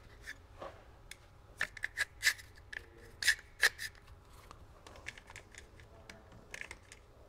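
One-handed speed clamps (ratcheting bar clamps) being squeezed onto a drive shaft flange, giving a string of sharp ratchet clicks. The loudest cluster comes about two to four seconds in, with fainter clicks after.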